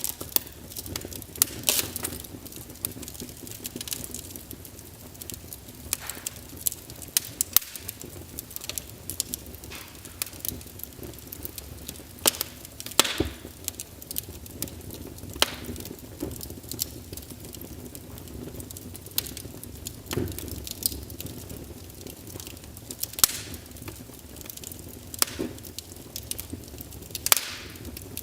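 Wood fire in a fireplace crackling: irregular sharp pops and snaps, a few louder than the rest, over a low steady hiss of burning.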